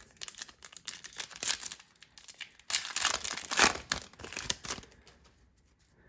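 Wrapper of a 2020 Topps Fire baseball card pack being torn open and crinkled. The crackling is loudest from about three to four and a half seconds in.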